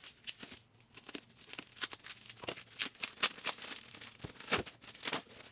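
A shipping package being torn open by hand, its wrapping crinkling and tearing in an irregular run of crackles and snaps, a few louder ones in the second half.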